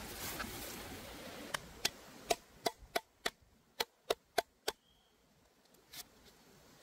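Sharp knocks on a wooden chopping board: about a dozen quick, irregular strikes between about one and a half and five seconds in, and one more about six seconds in.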